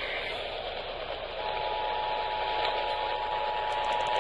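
Broadcast radio hiss, then about a second and a half in the Emergency Alert System attention signal starts: two steady tones sounded together, marking the start of an emergency alert broadcast.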